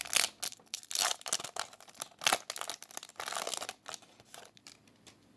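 Trading cards from a freshly opened Yu-Gi-Oh booster pack being handled and slid past one another: a quick run of papery rustles, flicks and crinkles that dies away about four seconds in.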